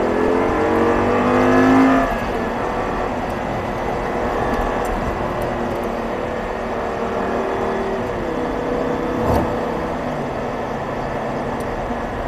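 Audi R8's V10 engine accelerating hard, its pitch climbing for about two seconds, then falling away abruptly and running on at a lower, steadier note under tyre and wind noise. A single thump about nine seconds in.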